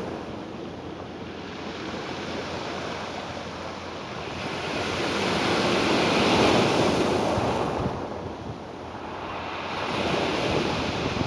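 Ocean waves washing onto a shore, one wave swelling to a peak about halfway through and ebbing away before the next builds, with some wind on the microphone.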